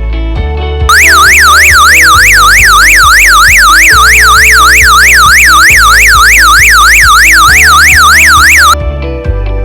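Electronic intrusion-alarm siren sounding, its tone sweeping rapidly up and down about three times a second. It starts about a second in and cuts off near the end, over guitar background music.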